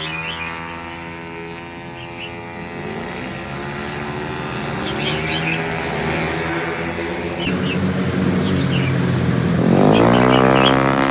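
Race car engines running on a dirt track, growing louder as the cars come closer, with one engine revving up sharply and rising in pitch near the end.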